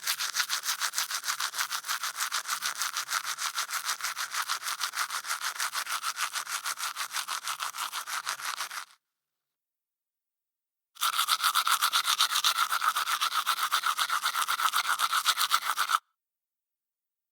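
Toothbrush scrubbing teeth with quick back-and-forth strokes, about five a second. The first run lasts about nine seconds, then it stops for about two seconds, then scrubbing resumes for about five seconds.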